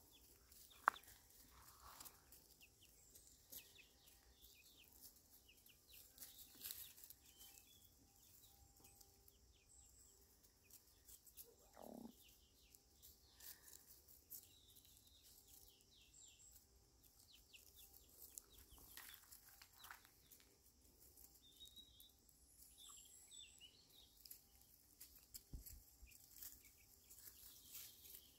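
Occasional faint, soft clucks from young chickens foraging, over quiet outdoor background with scattered small clicks.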